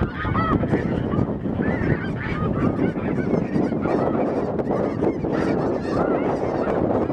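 A large flock of snow geese calling overhead: a dense chorus of many overlapping short, high honks with no pause. A low wind rumble on the microphone lies under the calls.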